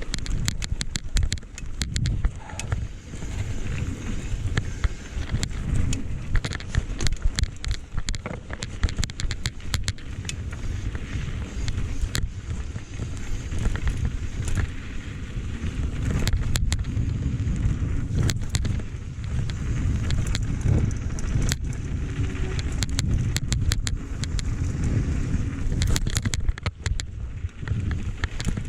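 Wind buffeting the microphone in a steady low rumble, over dense rattling and clicking from a mountain bike riding a rough dirt trail.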